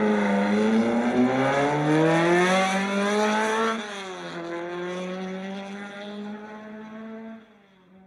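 Car engine revving up under acceleration, its pitch climbing steadily, then dropping at a gear change about four seconds in and climbing again more gently. It grows quieter after the shift and dies away near the end.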